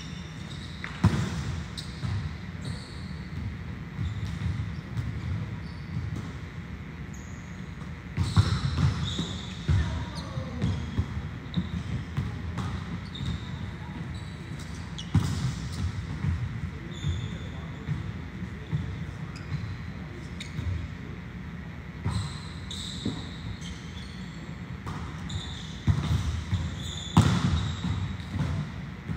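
Volleyballs being served and passed: a sharp smack of a ball being struck roughly every seven seconds, with duller thuds and bounces of balls in between. Voices in the background.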